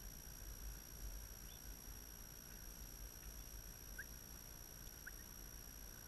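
Faint outdoor ambience: wind rumbling on the microphone under a steady thin high whine, with two short rising chirps about four and five seconds in.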